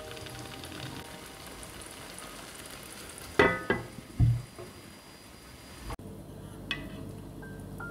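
Chicken thighs simmering in tomato sauce in a pan with a steady sizzle, and a glass pan lid clanking down onto the rim twice, about three and four seconds in. The sizzle cuts off about six seconds in.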